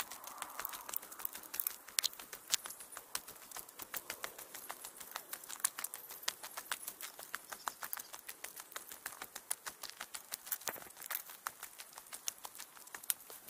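Footsteps on a stony trail: a dense run of sharp, irregular clicks and crunches.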